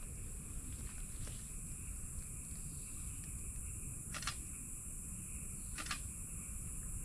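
Tropical forest ambience: a steady high-pitched insect drone over a low rumble of wind, with two short chirps from an animal about four and six seconds in.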